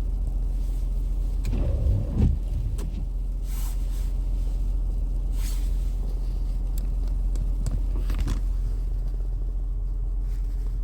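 A steady low mechanical hum, with a couple of thumps about two seconds in and a few short hissing rustles later.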